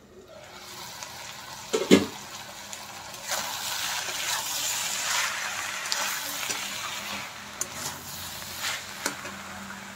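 Spinach and mixed vegetables sizzling in a hot pan while being stirred and turned with a metal spatula, with scraping and clinks of the spatula on the pan and a sharp knock about two seconds in.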